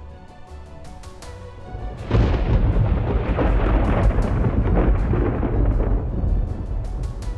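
Thunder: about two seconds in, a sudden loud clap breaks in and rumbles for about four seconds before fading, over background music with a steady beat.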